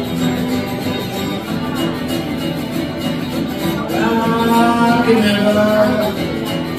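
Acoustic guitar strummed steadily, with a man's voice singing a phrase from about four seconds in.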